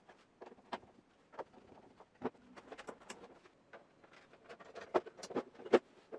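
Irregular light clicks and knocks from plastic parts of a Corona CD-P6318 dehumidifier being handled, with a few sharper knocks about five seconds in and near the end.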